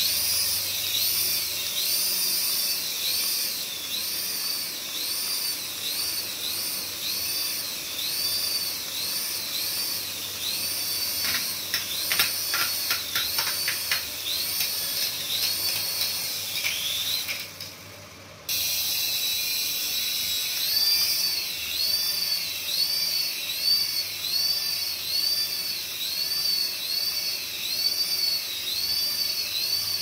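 A small remote-control toy helicopter's electric motors whining at a high pitch, with a battery toy's electronic warbling tone repeating about one and a half times a second. A run of light clicks comes in the middle, and the sound cuts out briefly a little past halfway.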